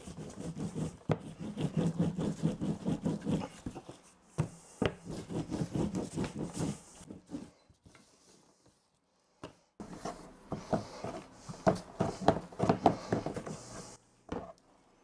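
Long, thin wooden rolling pin rolling gözleme dough out thin on a flat surface: a rapid rumble of knocks and rubbing as the pin goes back and forth. It comes in two long spells with a pause of about two seconds between them.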